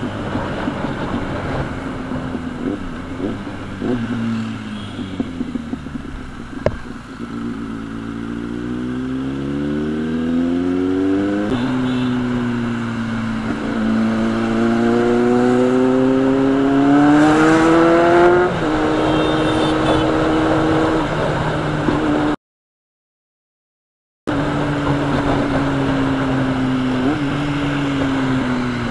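Kawasaki Z800's inline-four engine through a loud aftermarket exhaust, accelerating twice with rising revs and a drop in pitch at the gear change between, then settling to a steady cruise. All sound cuts out for about two seconds near the end.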